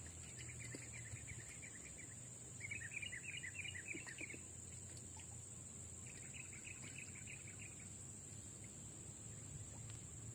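Wildlife calls: three bouts of rapid chirping trills, each about two seconds long, the middle one the loudest, over a faint steady high hiss.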